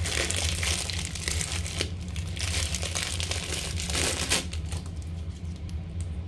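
Slime being squeezed and worked in the hands, making dense crackling and crinkling, busiest for the first four seconds or so and then thinning out, over a steady low hum.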